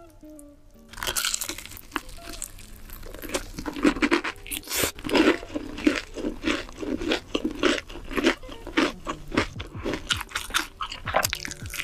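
Crispy fried chicken being bitten and chewed close to the microphone: a steady run of loud, sharp crunches that starts about a second in.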